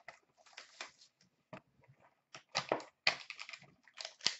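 Hockey card hobby box and foil pack being handled and opened: irregular crinkling, rustling and tearing of cardboard and foil, with a few sharp clicks.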